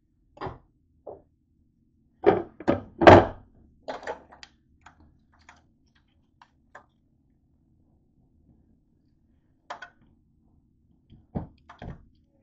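Irregular thunks and knocks from kitchen things being handled and set down on a countertop: a pot and lid and a countertop grill. The loudest are three knocks close together a little over two seconds in, with a few fainter clicks after them and two more knocks near the end.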